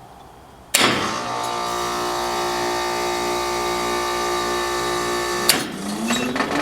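Trane XL16 heat pump compressor kicking on with a sharp click and running with a loud steady hum for about five seconds, then cutting off with another click. Near the end a hum rises in pitch. The brief run is the heat pump short cycling in heating mode.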